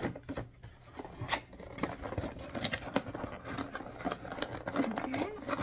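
A subscription box's contents and packing being handled and pulled out: an irregular run of small crinkles, clicks and scrapes.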